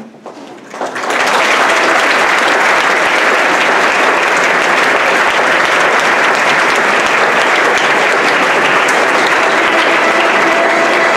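A large crowd applauding. The clapping starts about a second in and holds steady and loud.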